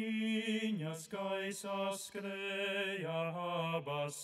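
Background music of slow, chant-like singing: a low voice holding long notes and stepping to a new pitch every second or two.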